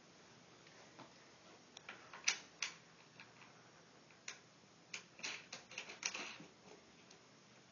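Faint, irregular clicks and knocks of hands working on a wooden loom frame while knobs are tightened finger tight onto its bolts. The sharpest click comes about two seconds in, with a cluster of them in the second half.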